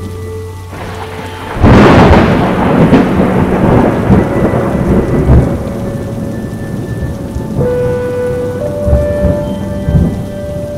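A sudden loud thunderclap about a second and a half in, rolling on as rumble that dies away over several seconds, over steady heavy rain falling.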